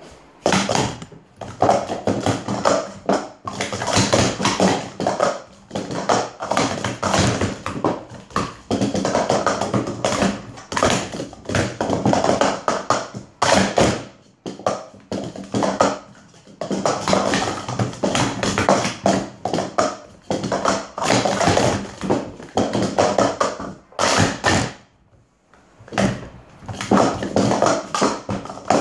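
Hard plastic sport-stacking cups clattering in quick runs of taps and knocks as they are stacked up and down on a stacking mat. There are two brief pauses, about a third of the way in and again near the end.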